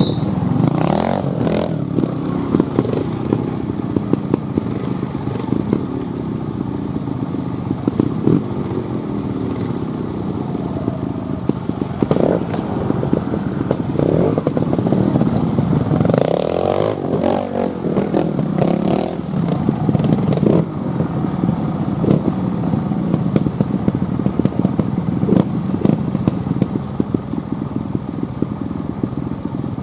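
Trial motorcycle engines idling and revving in repeated short blips, the pitch rising and falling again and again, with scattered clattering ticks.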